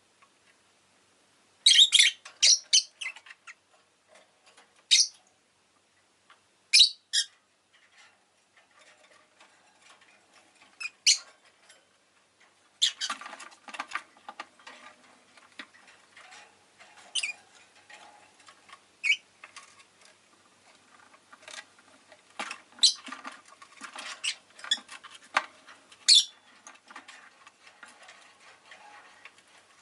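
Rosy-faced lovebird giving short, sharp, high-pitched chirps: a quick burst of several about two seconds in, then single chirps every few seconds. From about halfway, a steady run of faint small clicks and scratching sounds goes on beneath them.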